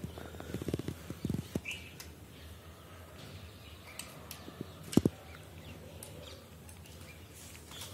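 A plastic grooming brush raking in short strokes through a Tibetan Mastiff's thick, shedding coat during the first second and a half, with a brief high chirp among them. It then goes quieter, and a single sharp knock comes about five seconds in.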